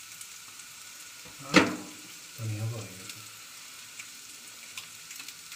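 Onion-tomato masala frying in a pan with a low steady sizzle. One sharp knock about a second and a half in, and a few light clicks near the end as an egg is cracked open over the pan.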